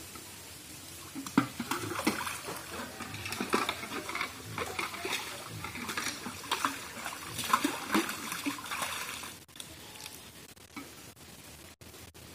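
Pond water splashing and sloshing as a pot is dipped and filled, in irregular splashes that start about a second in and die down after about nine seconds.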